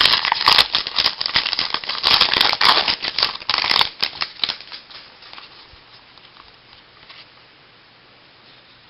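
Baseball trading cards and their pack wrapper being handled: a rapid run of crinkling, rustling clicks for about four seconds, dying away to faint room noise.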